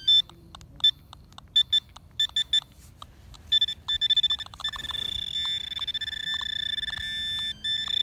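Handheld metal-detecting pinpointer beeping in short, high chirps as it is pushed into the dug hole. About three and a half seconds in, the beeps come faster and run into an almost continuous tone, signalling buried metal close to the probe tip.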